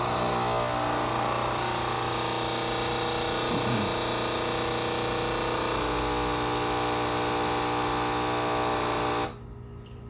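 Turmix Nespresso capsule machine's vibratory pump buzzing steadily as it pushes descaling solution through the machine, then cutting off about nine seconds in.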